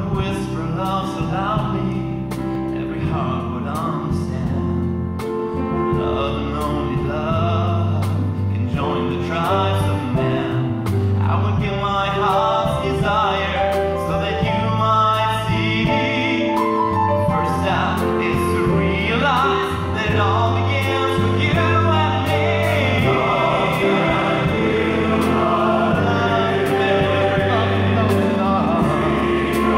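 Men's chorus and a male soloist singing over instrumental accompaniment with long held bass notes.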